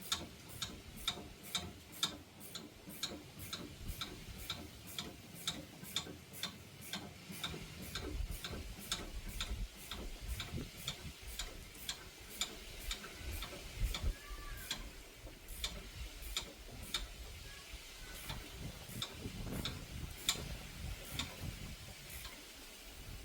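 Steady, evenly spaced mechanical ticking, nearly three ticks a second, with a low rumble joining about eight seconds in.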